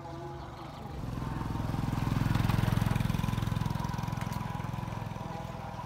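A motorbike engine passing close by. It grows louder from about a second in, peaks about halfway through, then fades as the bike moves away.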